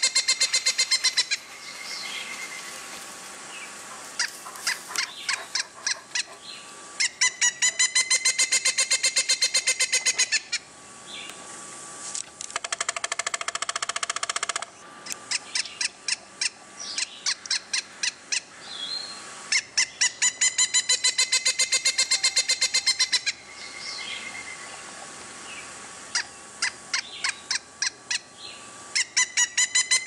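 Pileated woodpecker calling: long series of loud, rapid, ringing notes, about seven a second, each series lasting about three seconds and repeating roughly every twelve seconds, with softer scattered notes between the series.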